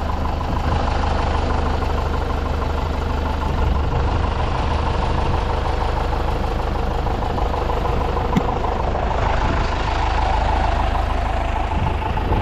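An engine idling steadily, with a single sharp click about two-thirds of the way through.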